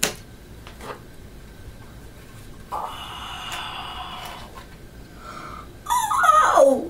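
Light clicks from handling a Crosman C11 airsoft pistol, then, loudest, near the end, an excited drawn-out "oh" from a boy, sliding down in pitch.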